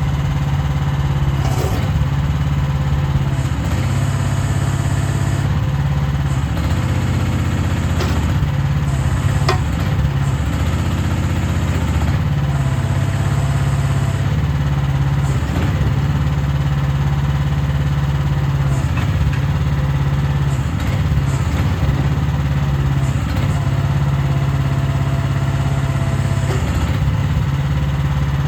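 Toft 12 mini hydraulic excavator's engine running steadily, with a few sharp clanks along the way.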